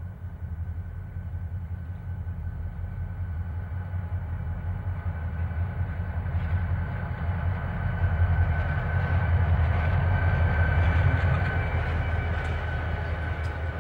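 Conrail diesel freight locomotives rumbling past at close range, followed by loaded freight cars rolling by on the rails. The sound builds to its loudest about two-thirds of the way through, with a thin steady high tone over the rumble and a few sharp clicks near the end.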